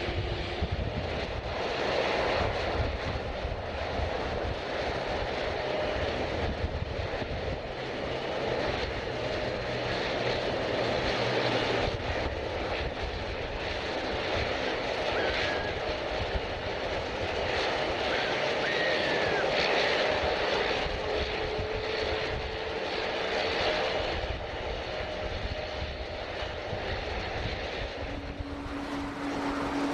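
Jet airliner engines running, a continuous rumble and rush that swells a little past the middle and then eases.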